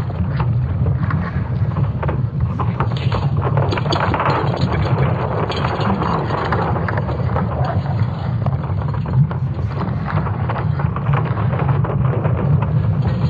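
Sonified recording of Earth's magnetic field: a steady deep rumble with crackling and creaking laid over it.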